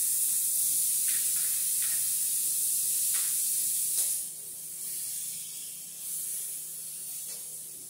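Raw seasoned shrimp sizzling in a hot buttered pan right after being dropped in: a loud, steady hiss that drops to a quieter sizzle a little after four seconds in, with a few faint pops.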